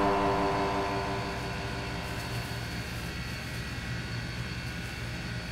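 A held musical chord fading out over the first second or two, leaving a steady low machine hum with a faint high whine.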